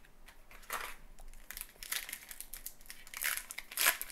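Crinkling and tearing of a trading-card pack wrapper as it is handled and ripped open, in a run of short rustling bursts that grow louder toward the end.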